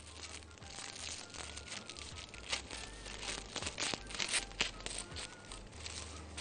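Thin plastic freezer bag crinkling and tearing in irregular crackles as scissors hack at it. The scissors are too blunt to cut the plastic cleanly.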